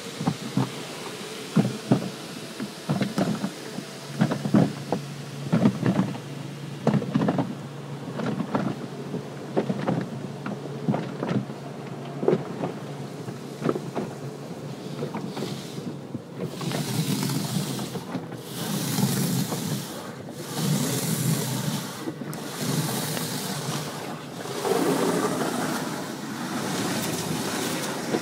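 Automatic car wash heard from inside the car: water hitting the roof and windows in irregular thumps over a steady low hum. After about fifteen seconds, high-pressure spray sweeps over the car in surges about every two seconds, then turns into a steadier, louder spray near the end.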